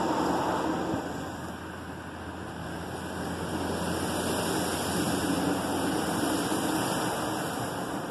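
Christ Genius rollover car wash running: the spinning brushes and water spray give a steady rushing hiss over a low motor hum. It drops a little about a second in, then slowly builds again.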